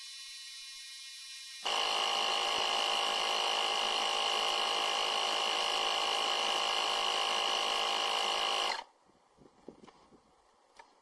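A KeenPower 21-volt cordless tire inflator's compressor motor running with a steady, high-pitched whine. It gets much louder about a second and a half in and cuts off suddenly near the end, followed by a few faint clicks.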